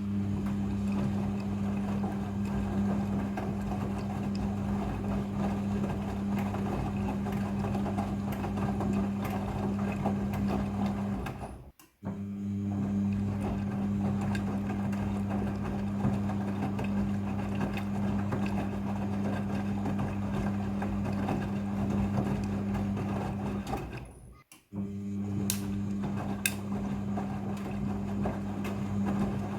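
Midea front-loading washing machine running its rinse cycle: a steady motor hum and whir, broken by two brief drops to silence about 12 and 24 seconds in.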